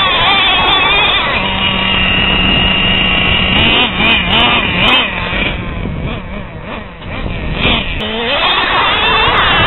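Traxxas Revo 2.5 nitro RC truck's small two-stroke glow engine running and revving up and down in rising and falling whines. It gets quieter for a couple of seconds past the middle, then comes back up.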